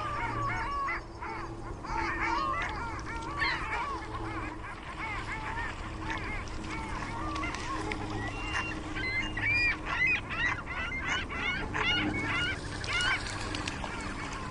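A flock of birds calling: many short, overlapping honking calls, thickest in the second half.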